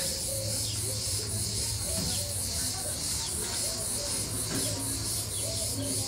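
Cicadas singing in a steady, high chorus that pulses in an even rhythm.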